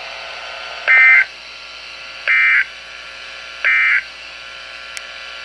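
Emergency Alert System end-of-message data bursts: three short, identical warbling digital tone bursts about a second and a half apart, marking the end of the weather warning broadcast, over steady radio hiss.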